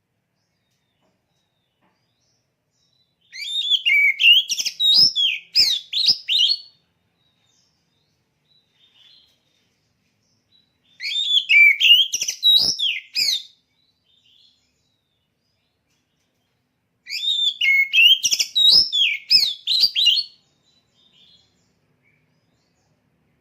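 Oriental magpie-robin singing: three phrases of quick, varied whistled and chattering notes, each about three seconds long, with pauses of several seconds between them.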